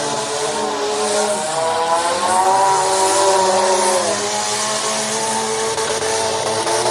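Several demolition derby car engines running and revving at once. One climbs in pitch about two seconds in and drops back about four seconds in, while another falls away early on.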